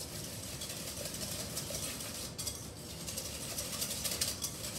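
Wire whisk beating a wet batter of mashed banana, sugar, eggs and oil in a glass bowl: a fast, steady clatter of the wires against the glass.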